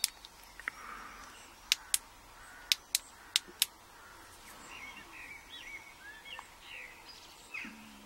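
A torch's switch clicked in four quick pairs, on and off, over the first four seconds; the torch does not light because its battery has gone flat. Faint bird chirps follow in the second half.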